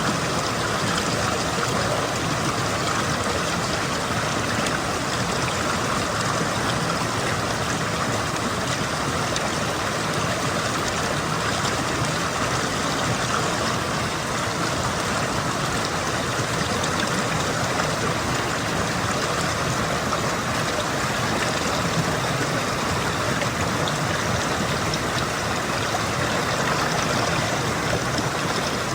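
Mountain stream flowing and trickling over rocks, a steady, even rush of water.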